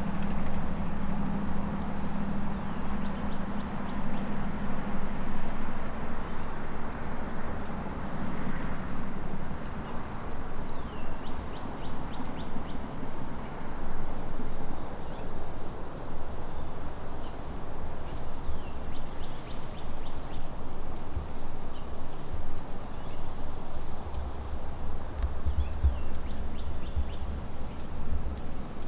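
Outdoor morning ambience: wind noise on the microphone with a low steady hum that fades out within the first several seconds, and short scattered bird calls later on.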